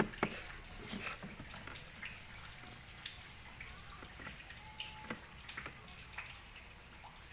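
Faint scattered clicks and taps of wiring and a small amplifier being handled, with a short faint tone about five seconds in.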